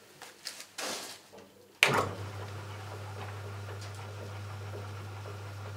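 Myford ML7 lathe switched on: a sharp click about two seconds in, then the motor and belt drive run up at once and keep running with a steady low hum.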